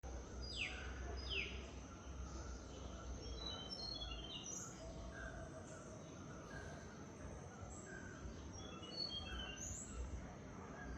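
Wild birds calling: two sharp down-slurred calls about half a second and a second and a half in, then a scatter of short, high chirps throughout, over a low background rumble.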